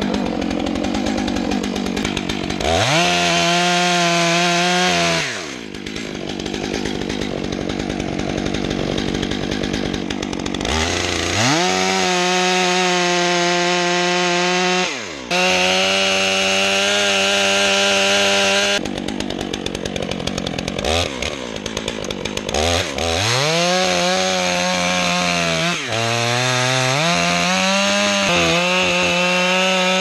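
Stihl MS 661 two-stroke chainsaw cutting into a large tree trunk. It revs up to full throttle for several seconds at a time, three or four times, and drops back to a lower speed between cuts.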